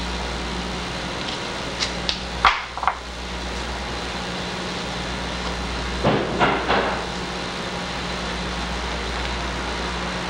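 Hands handling a veneered panel and a masking-tape roll on a wooden workbench: a few light knocks about two to three seconds in, then a scrape and rustle about six seconds in as the panel is lifted off the bench, all over a steady low hum.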